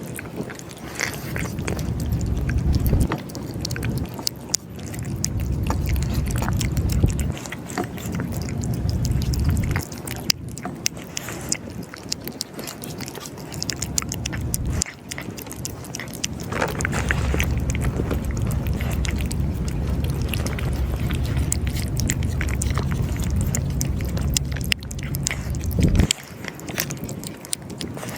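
Cats eating cat food: many small crunching bites and chewing, over a low rumble that comes and goes.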